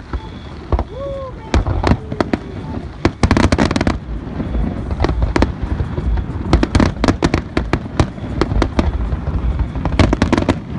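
Aerial fireworks display: sharp bangs and crackles of shells bursting, a few spaced bangs at first, then thicker, faster volleys from about three seconds in.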